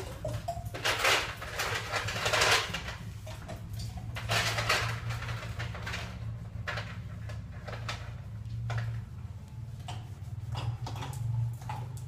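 A makeup-removing face wipe rubbed across the face in repeated swishing strokes, over a low steady hum.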